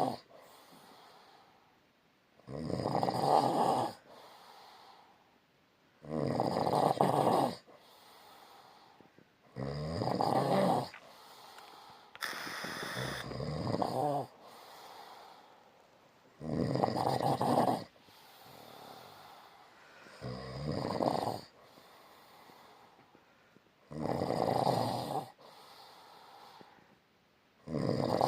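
Snoring in a slow, regular rhythm: about eight snores, one every three and a half to four seconds, each lasting about a second, with faint breathing in between. One snore about halfway through is longer than the rest.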